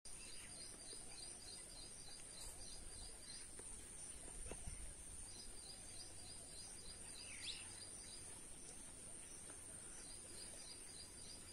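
Faint outdoor ambience of birds and insects: a steady high-pitched insect drone, three bouts of rapid high chirping, and a single quick falling bird chirp about seven and a half seconds in.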